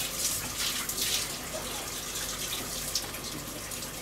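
A steady hiss, with faint brief crackles.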